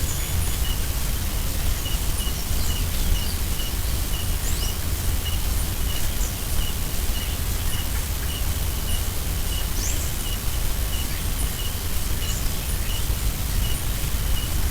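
Outdoor forest ambience over a steady low rumble. A short high chirp repeats about every half second, and brief bird chirps come scattered through it.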